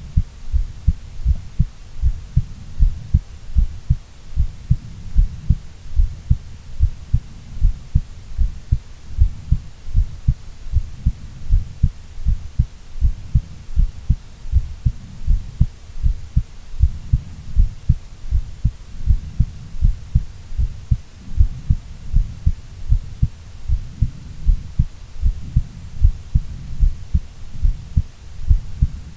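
A woman's heartbeat: a steady rhythm of low, dull thumps, about one beat a second.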